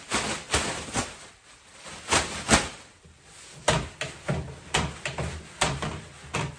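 White plastic trash bag being shaken open and fitted into a kitchen garbage can: irregular sharp crinkles and snaps of the plastic, with knocks against the can.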